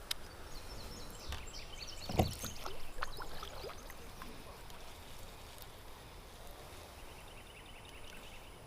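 Small knocks and clicks of fishing tackle being handled in a kayak during a lure change, with one heavier thump against the hull about two seconds in. Faint chirping in the background near the end.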